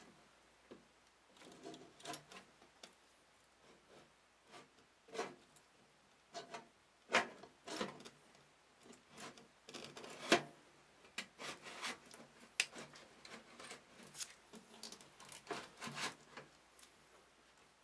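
SSD in a 3.5-inch adapter bracket being worked into a computer case's drive bay: irregular scraping and rubbing of the bracket against the bay, with scattered clicks and two louder knocks about seven and ten seconds in.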